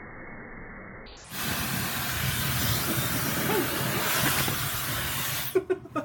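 Dyson hair dryer blowing: a loud, even rush of air that starts abruptly about a second in and cuts off near the end, followed by a few quick knocks.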